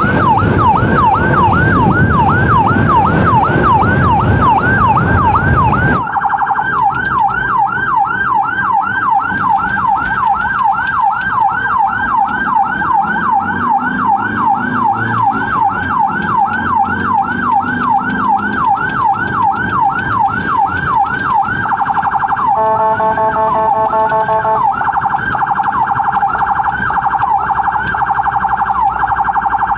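Emergency siren in a fast up-and-down sweep, about two and a half cycles a second, over wind and engine rumble at first; from about six seconds in it is heard from inside the ambulance cabin, with little rumble. About three-quarters through it briefly switches to a held, steady tone before the sweeping resumes.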